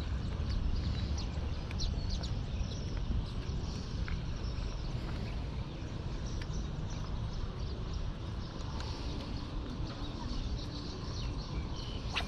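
Outdoor background noise: a steady low rumble with many short, high ticks and chirps scattered through it.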